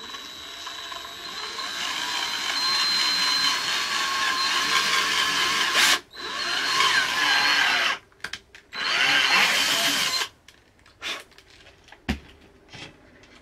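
Cordless drill boring holes through a tough plastic car diffuser, in several runs: one of about six seconds, a short break, then shorter runs that stop about ten seconds in. A few light knocks and a single thump follow near the end.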